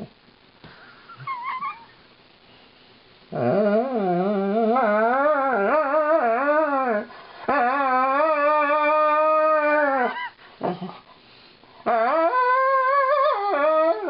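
Alaskan malamute 'singing' while being brushed: a short high yip, then three long howls, the first wavering up and down, the second held nearly level, the last sliding up at the start and stepping down at the end. It is the dog's annoyed protest at the brushing.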